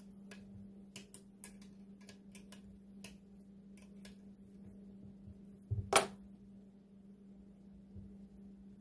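Scattered light clicks and taps of hands working a small pressure-pump hose fitting on a jet pump cone, with one louder knock about six seconds in, over a steady low hum.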